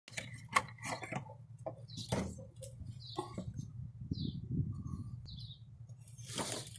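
Birds chirping in short high calls, over a low steady hum. In the first few seconds there are several sharp clicks and knocks, and a brief rushing noise comes near the end.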